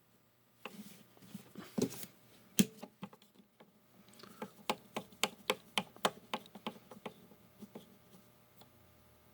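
Sharp clicks from the knobs and switches of a picture-tube tester being worked by hand. The clicks are scattered at first, then come in a quicker run of about three a second through the middle.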